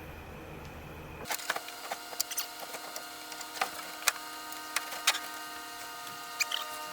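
A dozen or so sharp, irregular clicks and light knocks, starting about a second in, over a steady hum.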